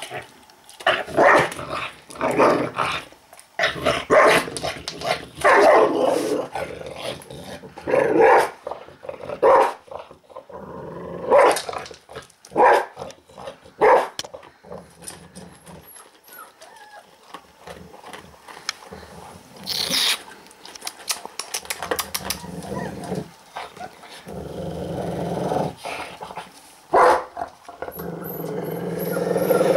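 Golden retriever growling and giving short snarling barks as it eats dry kibble from a stainless steel bowl: an angry, aggressive growl over its food. There are loud bursts over the first half, then quieter crunching and clicking of kibble against the bowl, and a low growl that builds toward the end.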